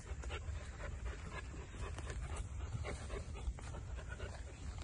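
A Bhotia dog panting, with many small irregular clicks over a steady low rumble.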